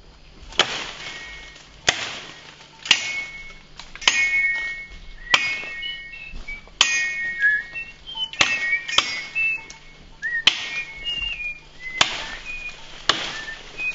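Machete chopping into branches: sharp blows about once a second, a dozen in all, with short high whistled chirps between them.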